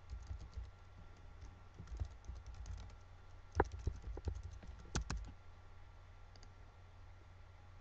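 Typing on a computer keyboard: a run of quick key clicks, with a few sharper keystrokes in the middle, stopping about five seconds in.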